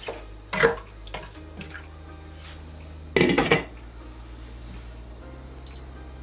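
A wooden spatula knocks and scrapes in a metal pot of soup, then a glass pot lid is set down on the pot with a clatter about three seconds in. Near the end a short electronic beep sounds from the hob's touch controls, over a low steady hum.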